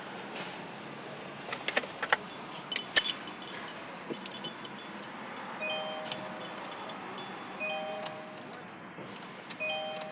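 Keys jangling and clicking for a few seconds. Then, from about halfway, a short electronic chime repeats about every two seconds.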